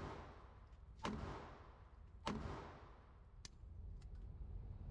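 Beretta 21A .22 LR pistol firing CCI Stinger rounds: three sharp shots about a second apart, the first two trailed by a long echo.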